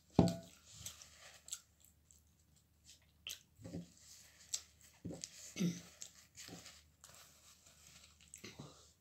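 Close-up chewing and eating sounds of pizza, with a paper napkin crinkling and a few knocks on the table; a sharp knock just after the start is the loudest sound.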